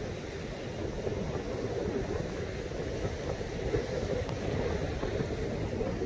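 Heavy typhoon surf breaking on a sandy beach in a steady wash of noise, with wind rumbling on the microphone.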